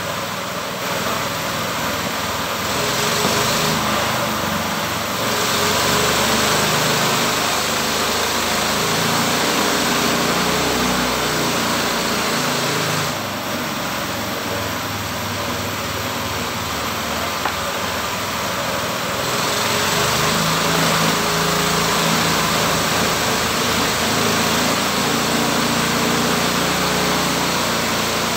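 Engine of a home-built sawmill running steadily, with long stretches where the overall noise swells louder and a rushing noise rises over the engine, then eases back.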